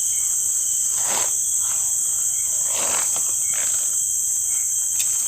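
Steady, high-pitched insect chorus droning without a break, with a couple of soft swishes about one and three seconds in.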